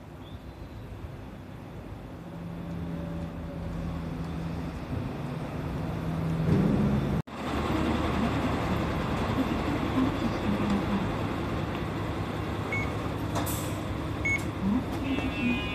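Vehicle running noise: a steady low motor hum that grows louder over several seconds, cut off suddenly about seven seconds in, then louder steady running noise with a few small clicks.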